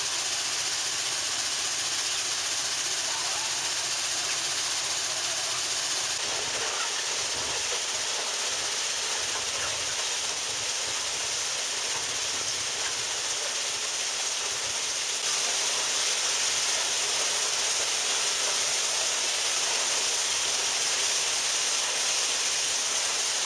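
Loram railway ballast-cleaning machine at work: a steady rushing hiss of the machinery and ballast moving through it. It shifts a little about six seconds in and gets louder about fifteen seconds in.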